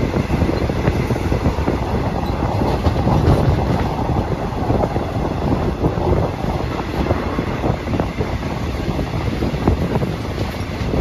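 Passenger train running along the track, heard from an open carriage window: a steady rush of running noise with the wheels clattering on the rails.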